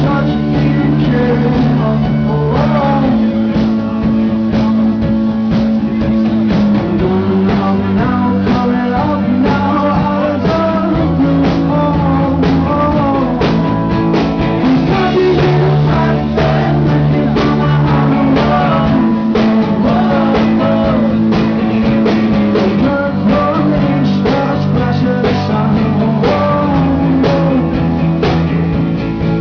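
Rock song played by a band: a singing voice over guitar and drum kit with a steady beat.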